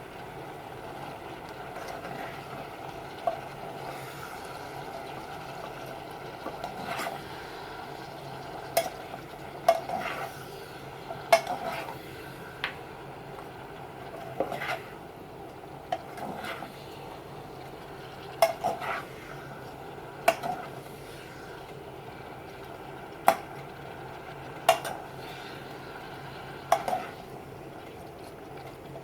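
A utensil knocking and scraping against a pan while vegetables are stir-fried, in irregular strokes every second or two, over a steady background hum.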